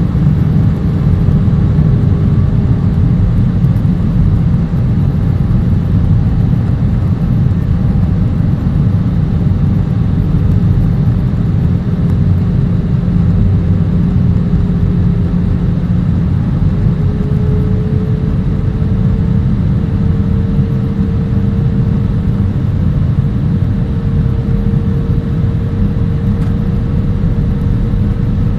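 Airliner cabin noise in flight: the jet engines and rushing air make a steady deep rumble, with a steady whine that steps up slightly in pitch a little past halfway through.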